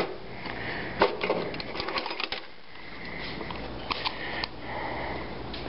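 Metal tools being rummaged through and picked up from a tool drawer: a few sharp clicks and rattles, a cluster of them in the first half and two more near the end. A faint steady high hum sits underneath in the second half.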